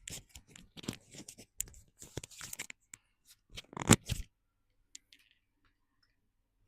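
Handling noise from a guitar strung with elastic bands: a run of rustles, scrapes and clicks, the loudest about four seconds in, then it goes quiet.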